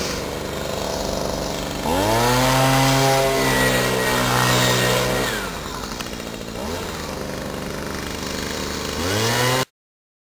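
Handheld two-stroke leaf blower running at a low idle, then revved up sharply about two seconds in and held at full throttle for a few seconds. It falls back toward idle and is blipped up twice more before the sound cuts off abruptly near the end.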